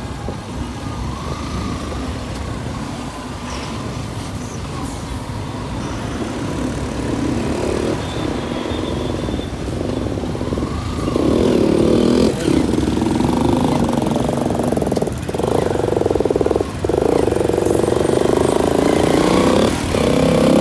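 Motorcycle engine and road noise while riding. The engine note grows louder about halfway through, broken by several brief dips.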